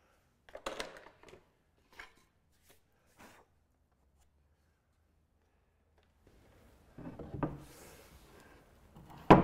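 Wooden boat seat being handled and fitted: a few short wooden knocks and scrapes, then a busier run of knocks and one sharp, loud thump near the end as the seat is set in place on its bracket.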